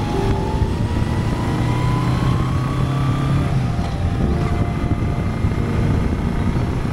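Honda Gold Wing sidecar outfit running at highway speed: a steady engine drone mixed with road and wind noise on the onboard microphone.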